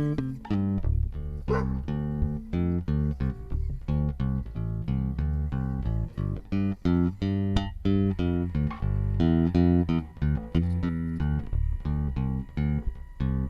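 Music with a plucked bass guitar playing a quick run of notes, along with guitar.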